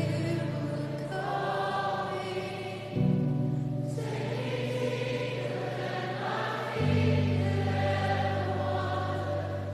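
Background choral music: voices singing slow, held chords over low sustained notes that move to a new chord about every three to four seconds.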